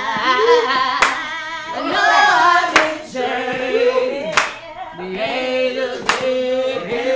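Several voices singing a slow church-style song, with a single loud hand clap about every second and a half.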